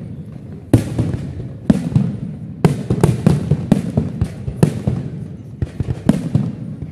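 Aerial firework shells bursting in quick succession: about a dozen sharp bangs, several coming close together, with a low rumble carrying on between them.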